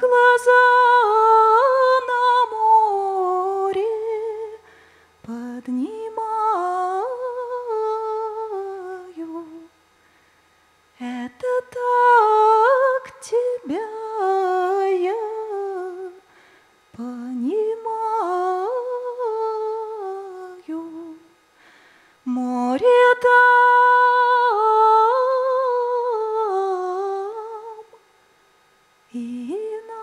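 A woman's voice singing a wordless melody without accompaniment, in phrases of about four to five seconds with short breaks between them.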